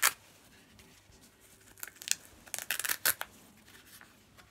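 Crinkly wrapping being crumpled and handled, in short crackling bursts right at the start and again in a cluster about two to three seconds in.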